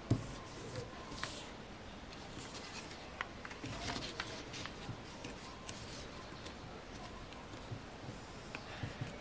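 A sheet of paper being folded and creased by hand: scattered crinkles, rustles and short scrapes as fingers press down the folds, with a soft knock near the start.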